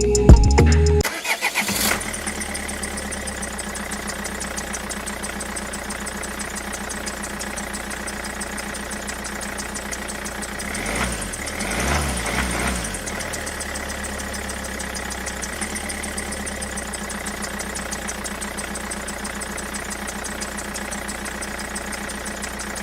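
Small motor running steadily with a constant hum and whine, wavering briefly in pitch about halfway through.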